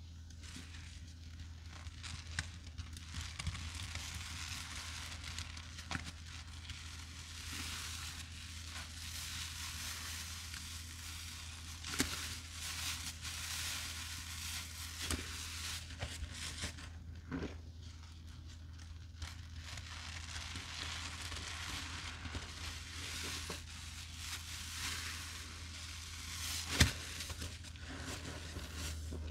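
Sponges loaded with cleaning paste and yellow dish soap being squeezed and worked by hand: a continuous wet hiss of squeezing foam that swells and eases in waves, with a few sharp clicks, the loudest near the end.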